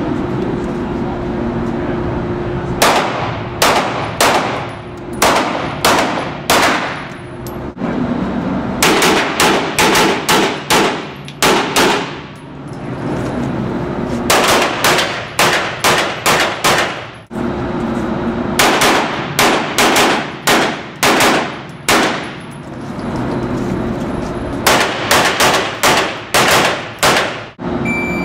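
Gunshots in a reverberant indoor range: five strings of rapid fire, several shots a few tenths of a second apart in each, with pauses of one to two seconds between strings, each shot ringing out after the crack.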